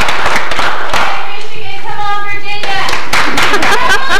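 Audience clapping for a correct answer, with a few voices mixed in. The clapping eases off about a second in and picks up again near the end, with a brief steady high tone about halfway through.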